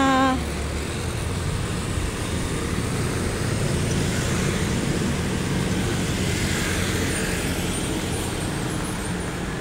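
Street traffic: a steady wash of road noise with motor vehicles passing. It grows a little louder a few seconds in and eases off near the end.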